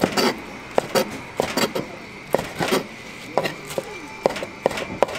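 Irregular sharp knocks and clinks of kitchen utensils and dishes, about one or two a second, over a faint steady high hum.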